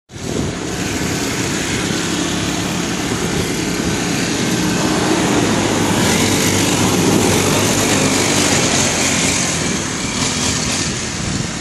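A pocket bike's small engine running steadily, its pitch rising a little around the middle.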